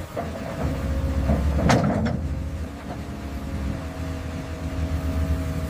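Tracked excavator's engine running steadily as the boom and bucket move. A sharp clank comes a little under two seconds in, with a weaker one just after.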